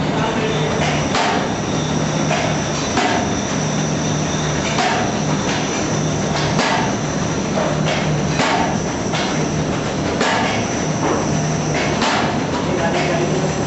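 Automatic paper bag making machine running: a steady mechanical clatter with a sharp knock about every two seconds and lighter clicks between.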